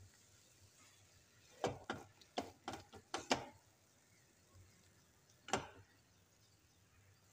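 A spatula knocking and scraping against the pan while coconut chutney is stirred: a quick run of about seven knocks, then a single one a couple of seconds later.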